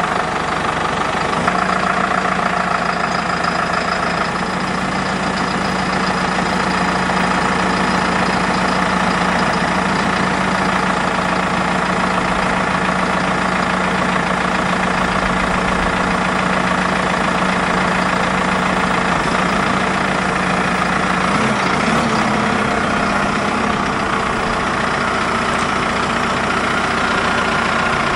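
Massey Ferguson 6S.165 tractor's six-cylinder diesel engine idling steadily, with a brief wobble in engine speed about three-quarters of the way in.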